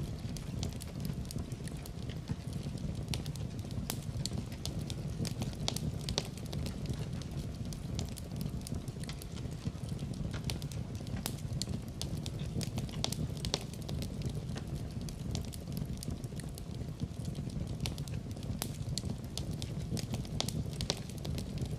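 Wood fire in a fireplace crackling, with frequent irregular sharp pops and snaps over a steady low rumble of burning.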